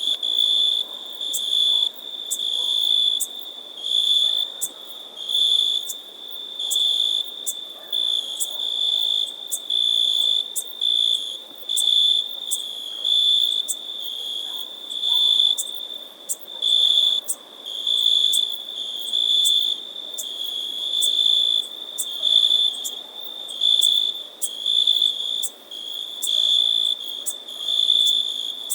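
Meadow insects chirping: a high, steady trill swelling and fading about once a second, with sharp high ticks over it.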